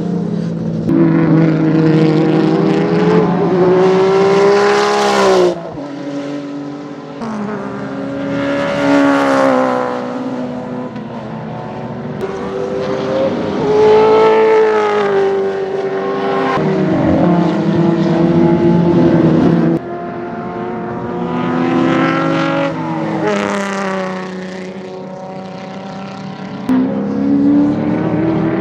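Historic Group A and Group C touring car engines at racing speed, revs climbing and falling through the gears as cars accelerate and pass. The sound changes abruptly a few times, about five seconds in, near twenty seconds and near the end, as one clip gives way to the next.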